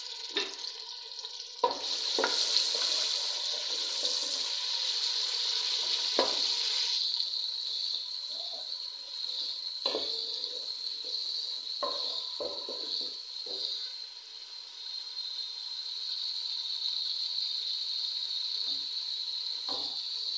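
Chopped tomatoes sizzling in hot cooking oil in an aluminium pot, a steady hiss that is fuller for the first several seconds and then settles. A wooden spoon stirs them, knocking against the pot now and then.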